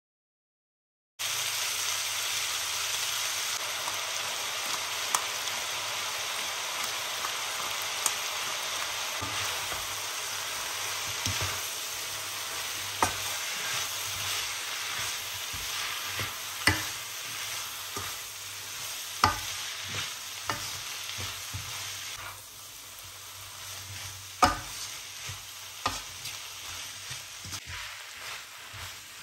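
Udon noodles, chicken and vegetables sizzling steadily in a hot wok over high heat while being stir-fried, with the spatula clicking and scraping against the pan now and then. The sizzle starts suddenly about a second in and eases off for the last several seconds.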